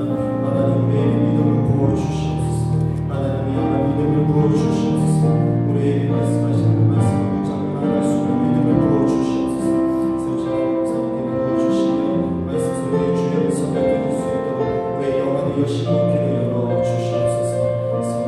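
Worship music on a Yamaha Montage 8 synthesizer keyboard: slow, sustained chords with a low bass line under them, played as a backing for congregational prayer.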